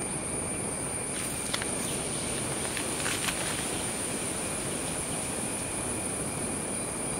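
A steady, high-pitched insect trill, cricket-like, over an even hiss, with a few faint ticks.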